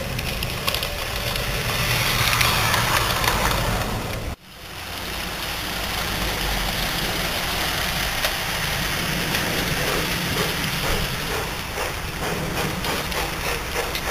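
LGB G-scale model train running on garden track: small electric motor whirring and wheels rolling over the rails, growing louder as the railcar comes close. The sound breaks off abruptly about four seconds in, then carries on as a steady rolling run.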